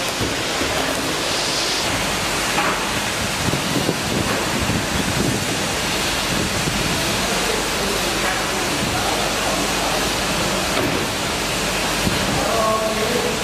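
Steady rushing noise of a heat shrink tunnel's hot-air blower and the running packaging-line machinery as a film-wrapped bundle of cans passes through.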